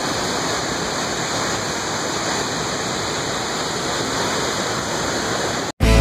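Waterfall rushing steadily, cutting off abruptly near the end.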